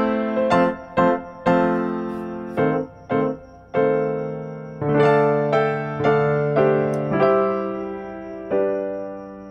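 Background music: electric piano playing a short melody over chords, ending on a held chord that fades out.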